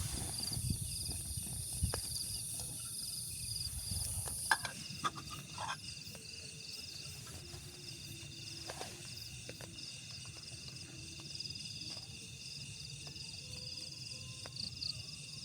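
Insects chirring steadily in high, pulsing tones. A low rumble with a hiss runs under them for the first four seconds or so, then cuts off suddenly. A few sharp clicks follow.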